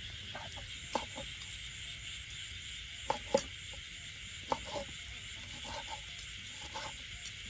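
A large kitchen knife cutting grilled cow udder on a wooden chopping board: a few sharp knocks of the blade hitting the board, the loudest two close together about three seconds in. A steady high chorus of night creatures runs underneath.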